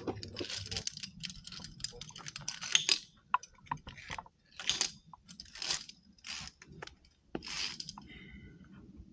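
Handling noise from a climber on a via ferrata: irregular clicks and scrapes with short rustles every second or so.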